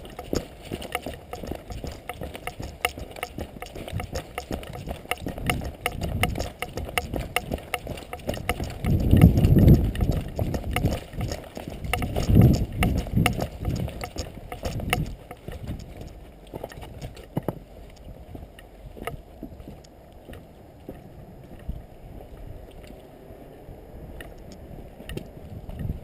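Rustling and irregular footsteps and knocks close to a worn camera's microphone, with two louder low rumbling swells about a third of the way and halfway through. It grows quieter after that.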